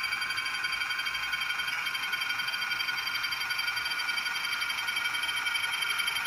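HO-scale model diesel locomotive running with a steady, high-pitched whine as it pulls its freight cars along the track.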